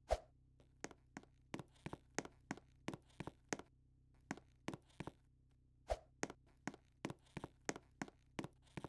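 A run of sharp taps or clicks, about three a second and often in quick pairs, with a heavier thump just after the start and another about six seconds in.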